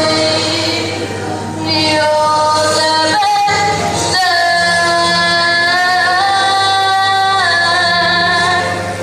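A female voice sings long held notes over band accompaniment with a steady bass line, the held pitch stepping up and down with a short break about three seconds in.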